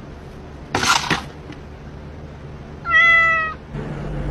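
A cat meowing once, a drawn-out call of under a second that falls slightly in pitch, about three seconds in. A brief burst of noise comes about a second in.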